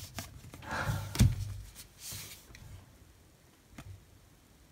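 Playing cards handled one at a time: a card slid off the front of the deck with soft swishing, a sharp tap about a second in, and another swish about two seconds in.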